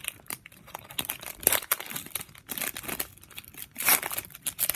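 Foil wrapper of a basketball card pack being torn open and crumpled by hand: irregular crinkling and crackling, with the sharpest crinkles about a second and a half in and again near four seconds.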